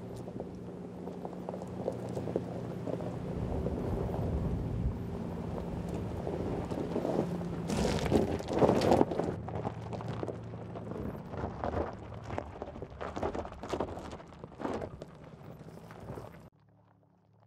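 Mercedes-Benz G 580 electric G-Class crawling over loose rocky gravel, its tyres crunching and cracking on stones, loudest about halfway through, over a low steady hum. Near the end the sound drops to a faint quiet hum.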